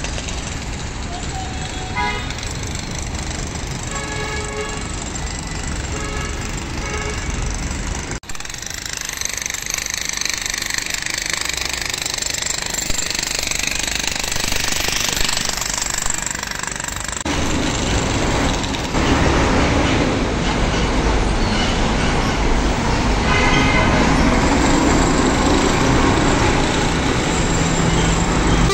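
Steady street traffic noise, with short car-horn toots several times in the first few seconds and again near the end.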